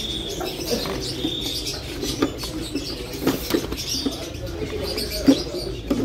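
Market birds calling around the cages: a mix of low cooing and higher chirps, with a few sharp clicks.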